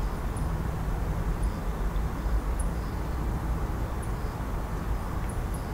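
Steady low rumble and hiss of background noise, with a few faint high ticks scattered through it.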